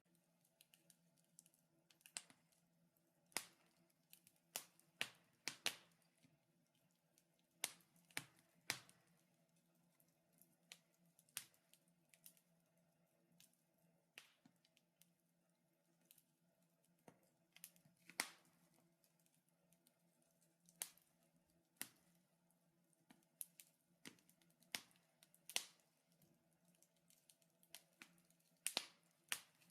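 Wood fire crackling in a fireplace: sparse, irregular sharp pops and snaps, some in quick pairs, over a faint steady hum.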